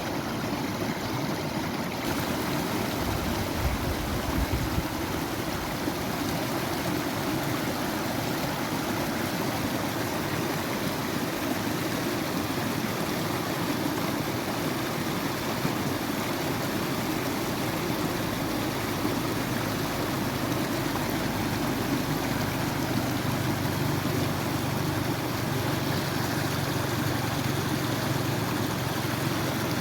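Steady rush of flowing water over rocks, a stream or small waterfall running without pause; the sound shifts slightly about two seconds in.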